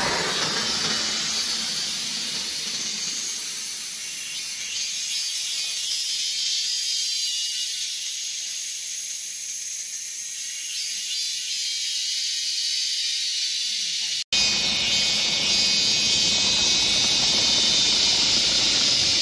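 Steady high-pitched chorus of cicadas in tropical forest. A brief dropout about fourteen seconds in, after which a low rumble runs beneath the chorus.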